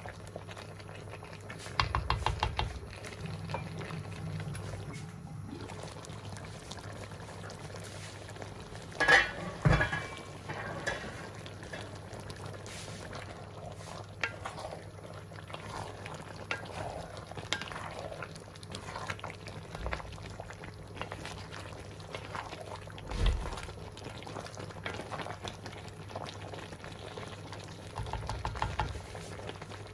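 Pot of chicken afritada stew bubbling at a simmer, with a few louder stirring or pot sounds, the loudest about nine seconds in.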